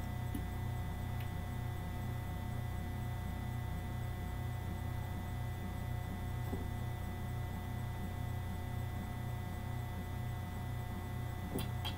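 Steady low electrical hum with a faint regular pulsing and a few thin, faint clicks near the start and the end.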